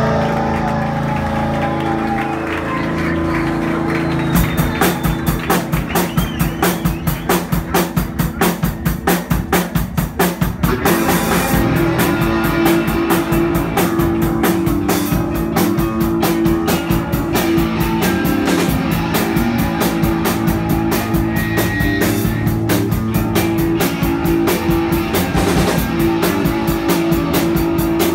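Live rock band playing electric guitars, bass and drum kit, driven by a fast, even drumbeat of about four hits a second. About eleven seconds in the band gets fuller and louder.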